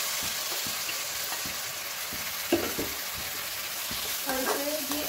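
Freshly added chopped tomatoes sizzling in hot oil in a steel kadhai, stirred with a perforated steel skimmer spoon that scrapes along the pan. There is a sharp knock of the spoon against the pan about two and a half seconds in.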